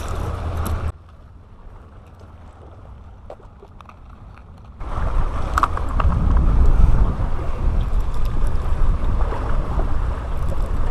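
Wind buffeting the microphone, a heavy low rumble that cuts out abruptly about a second in and comes back just as suddenly near the five-second mark.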